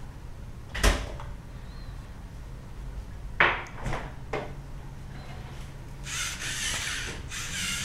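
A few sharp clicks and knocks as a LEGO Mindstorms NXT robot is handled and the buttons on its brick are pressed. About six seconds in, a high hissing whir starts, broken by short gaps: the robot's motors starting up as its program runs.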